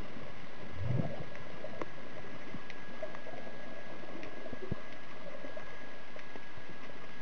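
Underwater ambience picked up by a camera: a steady hiss with scattered faint clicks and a thin steady high tone, and a brief low gurgle about a second in.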